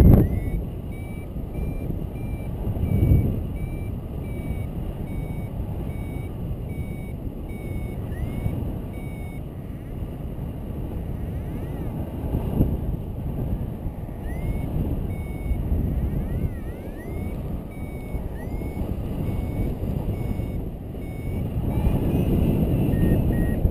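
A paragliding variometer beeping in a steady series of short high beeps, a little under two a second, sliding in pitch in places; near the end the beeps drop slightly in pitch and come closer together. The beeping is the vario's climb signal. Wind rushing over the microphone runs underneath, swelling in gusts.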